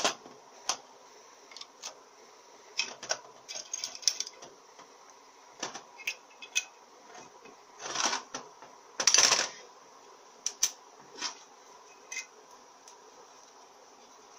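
Irregular clicks, taps and short scrapes of metal on metal as a transmission valve body is handled and worked with a screwdriver on a corrugated metal tray. The longest scrapes come about eight and nine seconds in.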